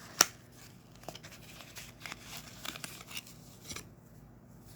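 Lego packaging being handled: scattered light clicks and crinkling of cardboard and plastic as a small box is opened, with the sharpest click just after the start.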